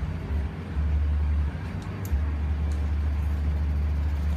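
A low rumble that drops out briefly a few times, with a few faint light clicks.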